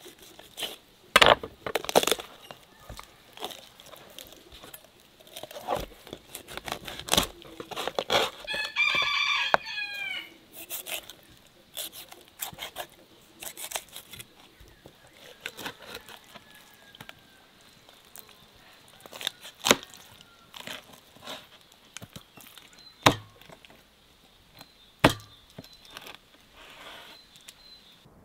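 A knife cutting up a whole raw chicken on a wooden board, with irregular sharp knocks of the blade against the board. A rooster crows once, about nine seconds in.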